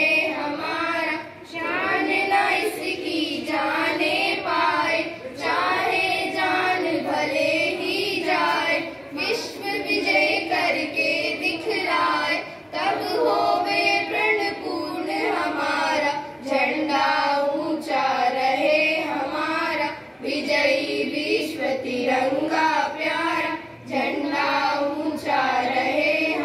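Schoolchildren singing together in long sung phrases, broken by short breaths a few times.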